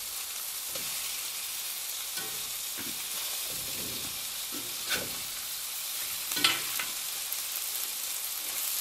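Hamburger steak patties with onions sizzling in a hot cast iron pan, a steady frying hiss. A metal spatula scrapes against the pan a few times, loudest about five and six and a half seconds in.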